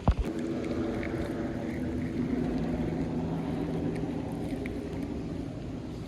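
A sharp thump, then an engine running steadily with an even, low hum.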